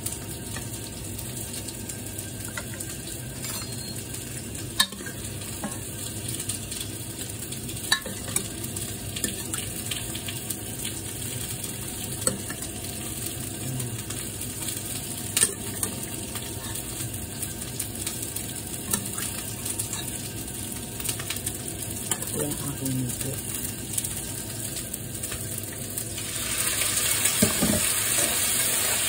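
Onion frying in oil in a frying pan: a steady sizzle with a few sharp clicks. Near the end the sizzling gets clearly louder as a ladle goes into the pan.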